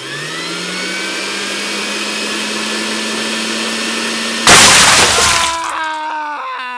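A person's long, harsh, distorted scream held on one pitch, breaking about four and a half seconds in into a much louder, rougher burst, then sliding down in pitch and cutting off near the end.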